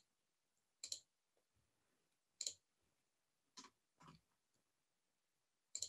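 Computer mouse clicks, about five short sharp clicks spread unevenly, with near silence between them.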